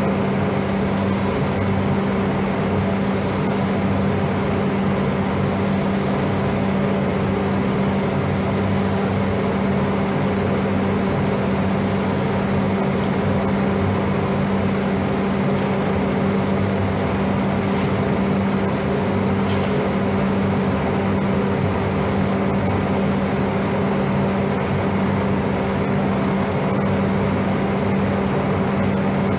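Automotive paint spray booth's ventilation fans running: a steady hum with a rush of moving air that does not change.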